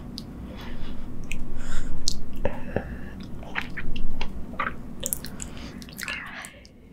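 Close-miked chewing with a full mouth: wet, irregular mouth clicks and smacks.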